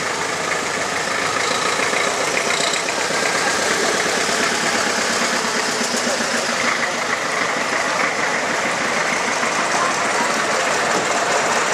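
Engine of a Robur bus running as it drives slowly past close by, followed by the engines of a Trabant car and a farm tractor.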